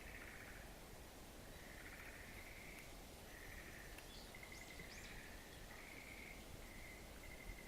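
Frogs calling, faint: a run of short pulsed trills, each under a second long, following one another about once a second. Two faint high chirps come in about halfway through.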